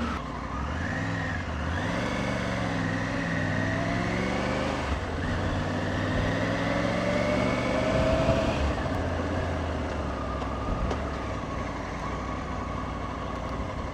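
Motorcycle engine running while riding, its pitch rising and falling as the revs change through the gears, with a marked drop about eight seconds in.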